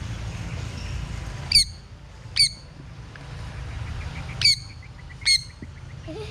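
Sun conure parrot giving four short, shrill squawks in two pairs, about two seconds between the pairs.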